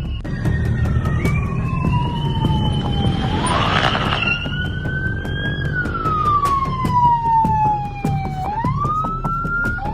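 Emergency vehicle siren wailing: a slow falling-and-rising tone that sweeps down, climbs, sweeps down again and climbs once more near the end, over a steady low rumble.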